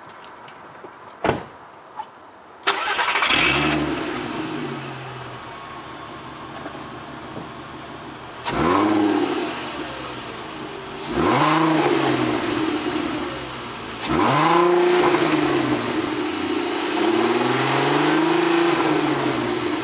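A 2003 Volkswagen GTI's 24-valve VR6 engine heard at its stock twin-tip exhaust. After a couple of sharp clicks, the engine starts about three seconds in, flares and settles to idle. It is then revved four times, the pitch rising and falling each time, with the later revs held a little longer.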